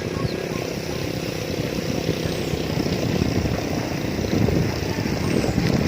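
Wind buffeting the microphone while riding a bike along a road, a dense low rumble that grows a little stronger near the end. A faint steady hum fades out about two seconds in.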